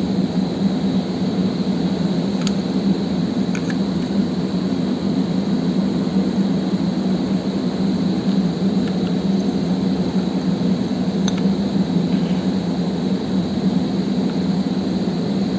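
Steady machine hum and whir with a constant high whine, and a few faint light clicks over it.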